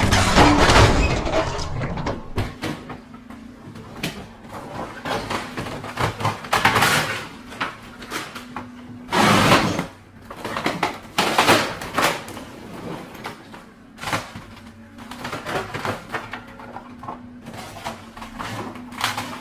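House-destruction sound effect: a string of irregular bangs, crashes and clattering breakage, with the loudest crash about nine seconds in.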